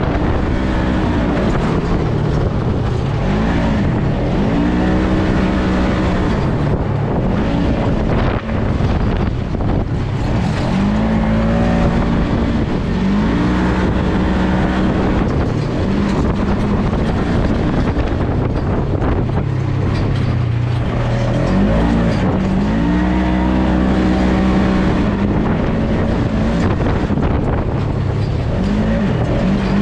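Polaris RZR side-by-side's engine driven off-road, its pitch rising and falling again and again as the throttle is opened and let off, over a constant rushing noise.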